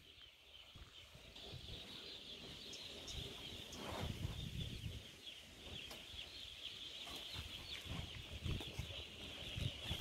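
A flock of chickens in a poultry shed, calling all at once in a steady high chorus, with low rumbling on the microphone now and then.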